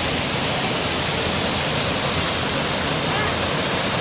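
Mountain waterfall: a steady, loud rush of falling and splashing water.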